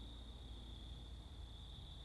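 Faint, steady, high-pitched trill of night insects such as crickets, over a low background rumble.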